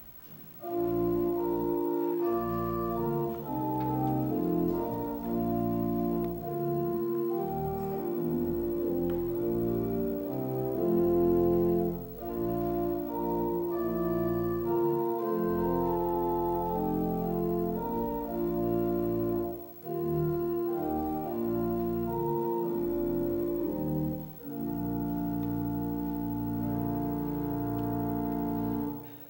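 Church organ playing a hymn tune in sustained chords, phrase by phrase, with short breaks between phrases.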